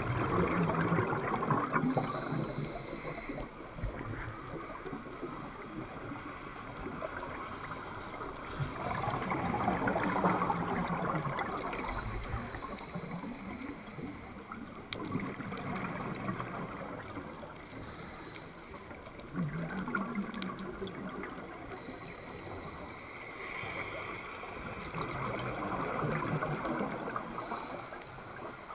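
Scuba diver breathing underwater through a regulator: the bubbling rush of exhaled air swells up every several seconds, four times in all, over a steady watery hiss.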